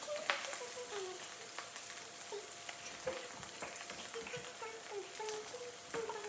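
Bacon frying in a skillet: a steady sizzle with scattered crackles and pops of spitting fat.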